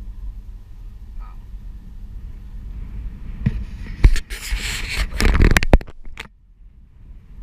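Low wind and rolling rumble on the camera microphone while riding a OneWheel XR+ electric board. About three and a half seconds in, a loud crackling, scraping noise lasts a couple of seconds, then cuts off abruptly and the sound drops quieter before the rumble returns.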